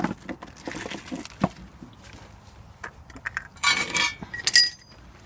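Small metal parts and tools clinking and knocking while a nut is searched for, with a loud burst of ringing metal clinks about two-thirds of the way through and one more shortly after.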